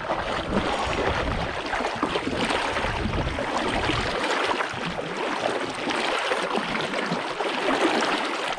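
Fast-flowing creek water, running high after rain, rushing with a steady hiss. A low rumble underneath stops about four seconds in.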